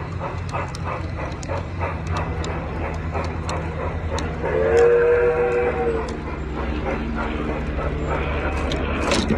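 Garden-scale model steam train running on outdoor track, heard from a car in the train: a steady rumble of wheels with regular clicking over the rail joints. About four and a half seconds in, a single whistle blast of about a second and a half. A sharp clatter comes near the end.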